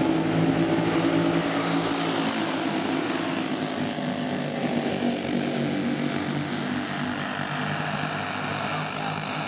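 Several small single-cylinder flathead kart engines at racing speed, a steady buzzing drone of overlapping engine notes. It grows a little fainter after the first few seconds as the pack moves away.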